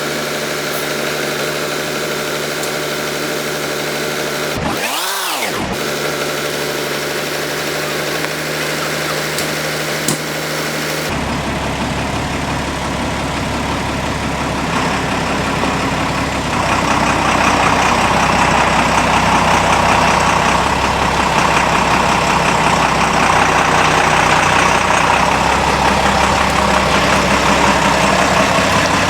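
An engine running steadily, growing fuller about eleven seconds in and louder and rougher from about sixteen seconds in.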